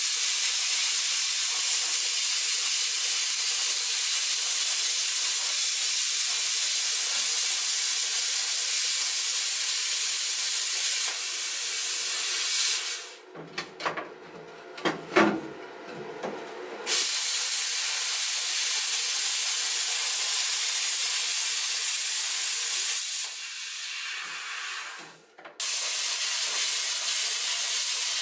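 Plasma cutter hissing steadily as it cuts through rusty sheet steel. About halfway through the hiss stops for a few seconds, with knocks and clicks in the gap, then resumes; near the end it dims, cuts off suddenly, and starts again.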